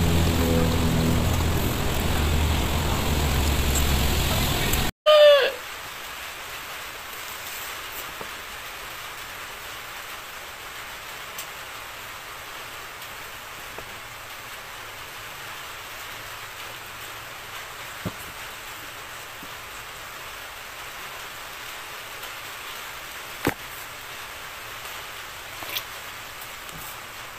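Background music with a steady beat that stops abruptly about five seconds in, followed by a brief sliding tone, then a steady even hiss with a few faint clicks.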